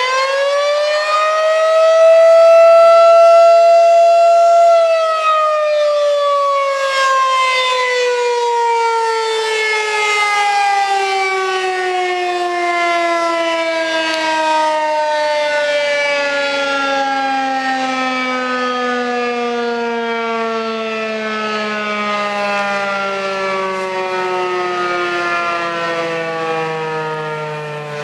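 Federal Signal 2001-130 electromechanical siren: its tone rises briefly, holds, then winds down in one long, slow falling glide over some twenty seconds, growing fainter near the end.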